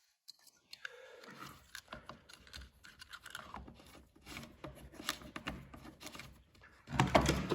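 Scattered light clicks and scrapes of hands working on a small chainsaw, with a louder thump and rustle about seven seconds in.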